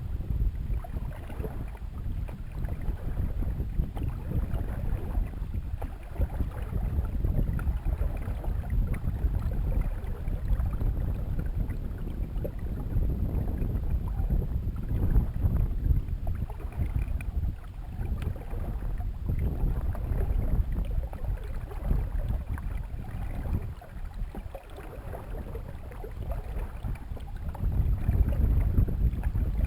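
Canoe moving across a lake, with an uneven low rumble of wind buffeting the microphone that swells and dips throughout, over the sound of water around the hull.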